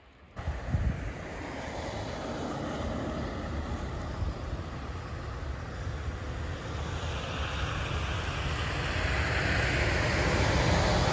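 Road traffic on a snow-covered dual carriageway: a steady hiss of tyres with engine rumble, growing louder toward the end as vehicles approach. Low wind rumble on the microphone.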